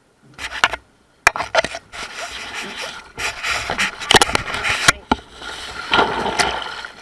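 Crew clambering across a small sailboat's deck right against the camera: scraping, rubbing and hard knocks, with a sharp knock about a second in. Water sloshes along the heeled-over hull near the end.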